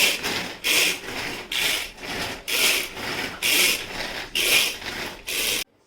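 Repeated rubbing strokes, a bit more than one a second, stopping abruptly near the end.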